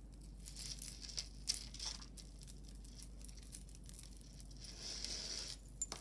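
Faint clinking and rustling of metal necklace chains and charms being handled and untangled, a scatter of small irregular clicks.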